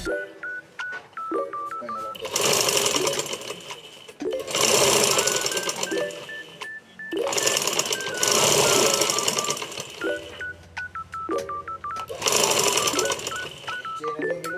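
A beeping electronic tune of stepping notes, repeating, alternates with four loud bursts of about two seconds of whirring, rattling mechanical noise.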